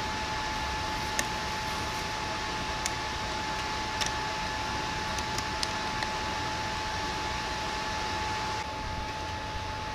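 Steady mechanical whir with a constant high whine, with a few light clicks scattered through the first six seconds; the whir drops slightly in level near the end.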